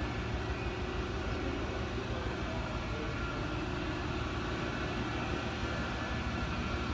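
Mighty Viper VT-27GL CNC turning center running under power: a steady hum with a few faint steady whines above it.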